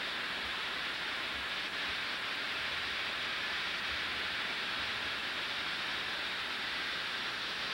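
Steady rush of water from a hose pouring into a pulp mill's secondary clarifier, churning the solid sludge on its surface to liquefy it.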